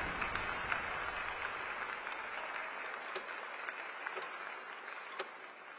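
Crowd applauding, the clapping dying away over several seconds.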